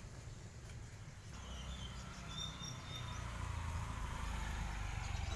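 A low engine rumble growing steadily louder, with a few short high chirps about two seconds in.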